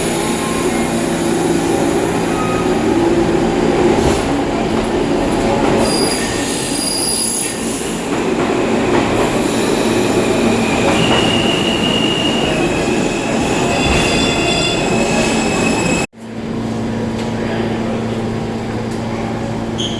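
R46 subway train pulling out of a station: motors and wheels running on the rails, with high wheel squeals past the middle. The sound cuts out abruptly near the end and a steadier hum follows.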